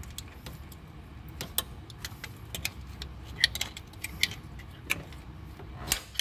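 Light metal clicks and clinks of a Dodge 4.7 V8's valve-train parts as a roller rocker arm is levered into place under the camshaft with a screwdriver, with a louder click near the end as it drops in.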